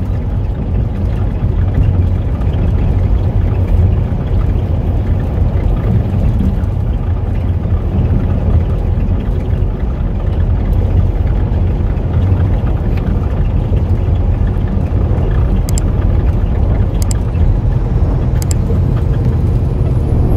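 Steady low rumble of a truck's engine and road noise heard inside the cab while cruising at highway speed. A few faint clicks come near the end, and a faint high whistle rises at the very end.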